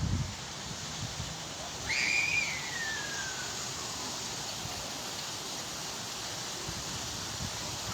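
Steady hiss of wind and rain. About two seconds in, one whistled note rises briefly, then glides down over about a second and a half.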